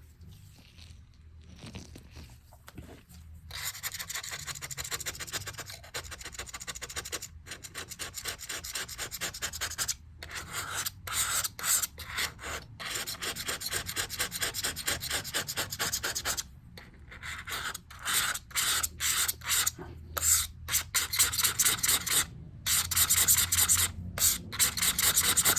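Blade scraping stubborn sticker glue off a MacBook, starting a few seconds in as fast, rapid scratching strokes, with a few brief pauses.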